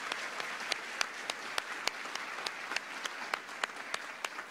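Audience applauding, a dense patter of many hands with a few louder, sharper claps standing out above the rest.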